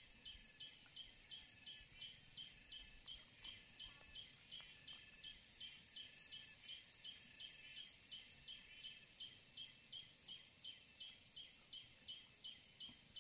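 Faint outdoor ambience: a short, high chirp repeating evenly about three times a second over a steady high-pitched hiss.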